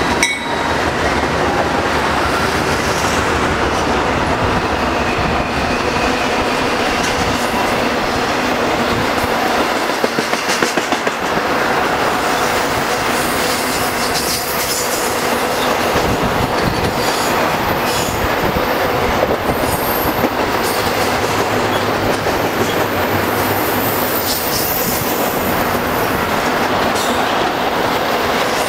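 Double-stack intermodal freight cars rolling past: a steady noise of steel wheels on rail, with a run of clacks over rail joints about ten seconds in and a faint thin wheel squeal.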